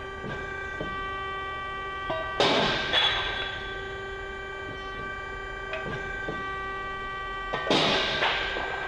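Durma IW80 hydraulic ironworker running with a steady hum from its hydraulic pump, broken twice by a pair of sharp metallic bangs about half a second apart as the machine cycles, with short ringing after each.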